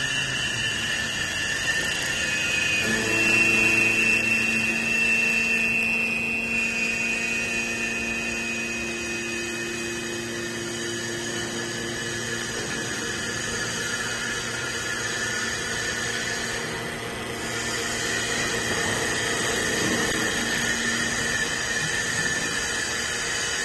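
CNC wood lathe running: a steady machine whine over a rougher noise, with the whine changing pitch about three seconds in.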